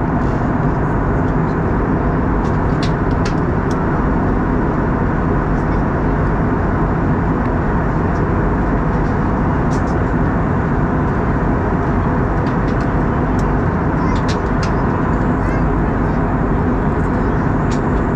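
Steady cabin noise of an Airbus A320 in flight: the low, even roar of the jet engines and the airflow over the fuselage, heard from a window seat beside the engine.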